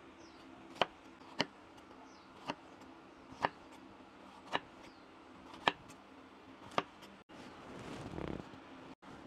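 Sharp single taps or knocks, about one a second and unevenly spaced, over a low steady hum. Near the end they give way to a brief rustling noise.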